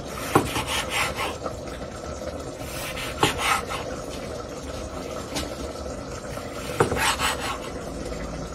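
Kitchen knife slicing mushrooms on a wooden cutting board: irregular knife knocks and scrapes on the board, the loudest a few around three seconds in and near seven seconds.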